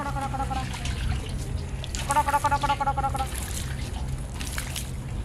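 Pond water trickling and sloshing in a metal basin as it is filled by hand. A steady low hum runs beneath it, and twice there is a rapid run of short high notes: right at the start and about two seconds in.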